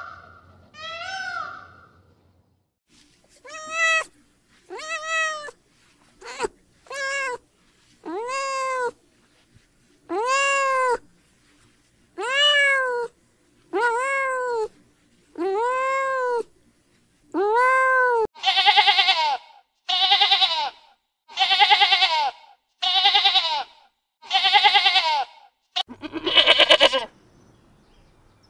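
A domestic cat meowing over and over, about ten separate meows, each rising and then falling in pitch. Five louder, harsher, wavering calls follow, and near the end a goat bleats once.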